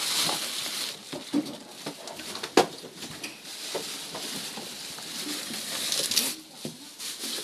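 A man walking out of a small room: footsteps, rustling and scattered light knocks, with one sharp knock about two and a half seconds in. Near the end comes a louder rustle as he pushes through a cloth doorway curtain.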